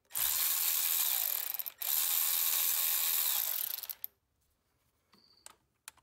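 Power drill/driver running in two spells of about two seconds each with a brief stop between, backing out the long, thin through-bolts that hold a furnace blower motor's housing together.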